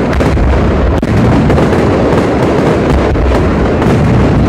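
Aerial fireworks display: a loud, unbroken run of shell bursts, bangs and crackling, packed closely together with no pause.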